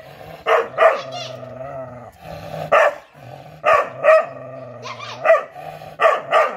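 Tan dog barking repeatedly, about eight sharp barks in singles and pairs with short gaps between.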